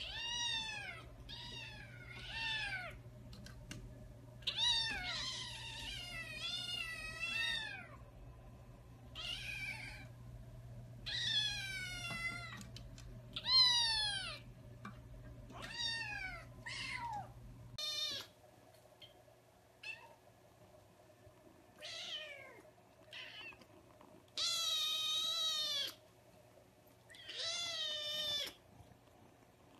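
Young kittens meowing over and over: high, thin meows that fall in pitch, some twenty of them, several overlapping as more than one kitten calls, with a few longer drawn-out meows near the middle and near the end.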